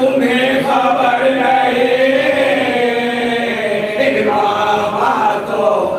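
Several men's voices chanting a marsiya, a Shia mourning elegy, together and unaccompanied, drawing out long held notes.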